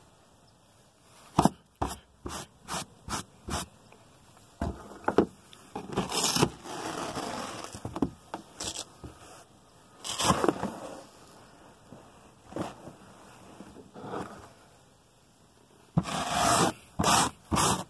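Brush scrubbing a car's carpet: quick short strokes, then a few longer sweeps, and a fast run of strokes near the end, loosening embedded dirt.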